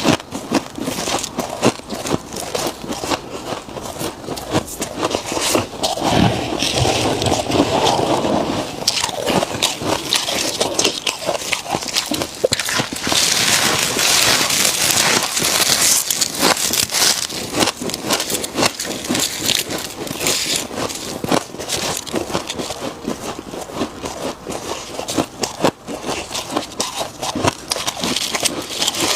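Freezer frost crunching and crackling as it is eaten, a dense run of crisp crackles, with a heavier, deeper crunching about six to nine seconds in.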